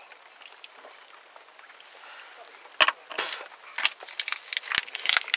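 Faint background hiss, then about three seconds in a sharp click followed by a quick run of clicks and rustling as things are handled close to the microphone.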